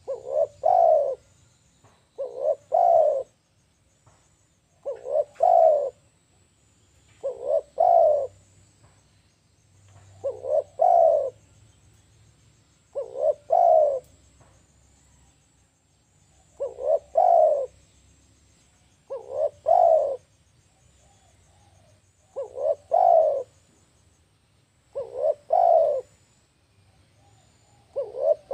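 Spotted dove cooing its lure call: phrases of a few quick notes ending in a longer, louder coo, repeated about every two and a half to three seconds, with one longer pause midway.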